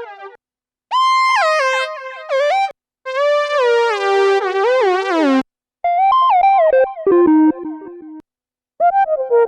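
Synthesizer lead patch from the Omnisphere 3 software synth played as short keyboard phrases, one bright note at a time with pitch glides between notes. Each phrase stops abruptly, leaving brief silences, four times.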